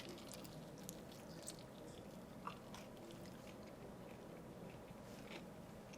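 Faint chewing and mouth noises from a person eating something, with scattered small clicks over a quiet background.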